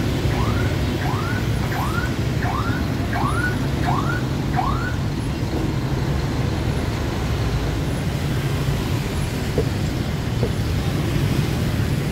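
Steady street traffic noise. For the first five seconds it is joined by a rapid series of short rising chirps, about two and a half a second.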